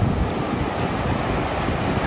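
Ocean surf washing over the shallows, a steady rush of water, with wind buffeting the microphone.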